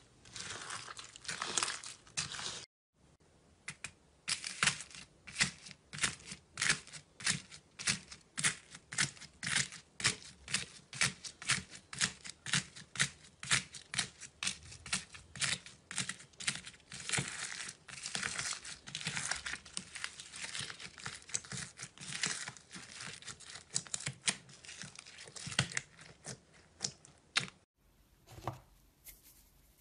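Hands pressing and kneading slime packed with foam beads, giving crisp crackling pops in quick succession. The popping breaks off briefly about three seconds in and again near the end, where it gives way to a quieter stretch of a few soft pokes.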